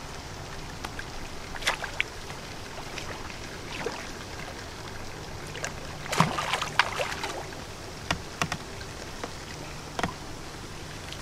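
A hooked carp splashing at the surface of the water as it is drawn over a landing net, with the loudest flurry of splashes about six seconds in and scattered single splashes and knocks before and after.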